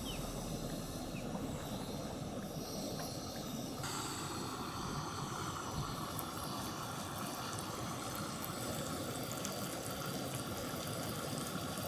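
Fish fillets sizzling in hot oil in a cast iron skillet, a steady frying hiss that turns brighter about four seconds in.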